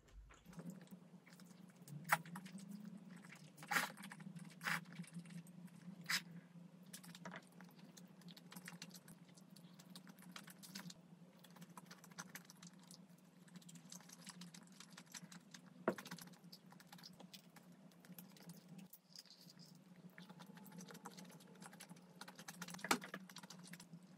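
Scattered light clicks and taps of chopsticks against dishes while eating, over a faint steady low hum.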